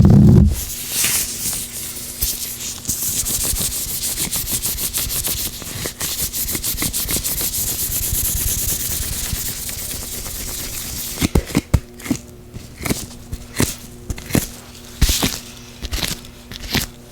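Oiled gloved hands rubbing together close to the microphone: a dense, fast, wet rubbing from about a second in, giving way about eleven seconds in to slower separate squelches and snaps.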